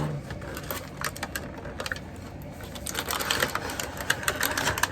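Cardboard box being opened by hand: flaps pulled and packaging handled, a quick run of small clicks and crackles with a rustle of cardboard and wrapping about three seconds in.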